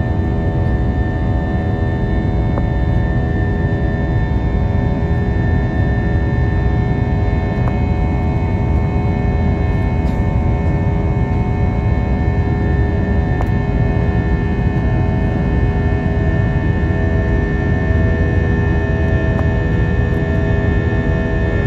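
Steady cabin noise of an Airbus A321 in flight, heard from inside the cabin: a constant low roar with several steady whining tones above it.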